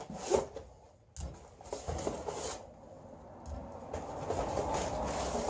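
Plastic wire spools being handled out of a cardboard box and stacked, with rustling and a few light knocks. From about three and a half seconds a steady low rushing noise comes in.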